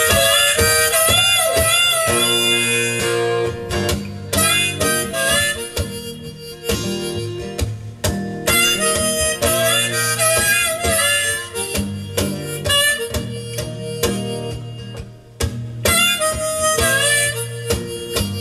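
Harmonica playing with acoustic guitar in a small, intimate live recording, played back over hi-fi loudspeakers.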